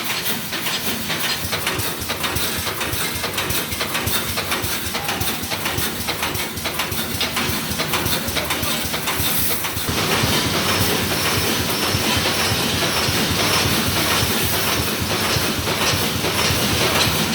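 High-speed wire mesh welding machine running, a fast continuous mechanical clatter over a steady hiss. About ten seconds in it grows louder and fuller.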